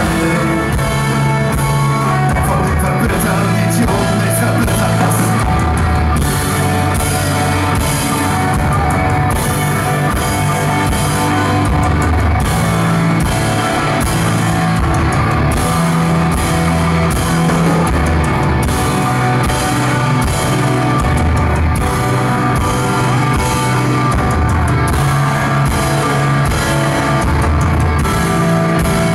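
Live rock band playing loud and steady: electric guitars, electric bass guitar and a drum kit keeping a regular beat.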